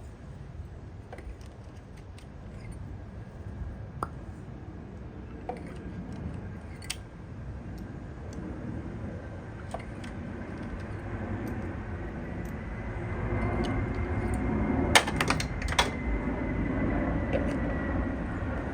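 Scattered light clicks and clinks of tools and spark-plug parts being handled while the spark plugs are pulled out of the engine, with a quick run of clicks near the end, over a low rumbling background noise.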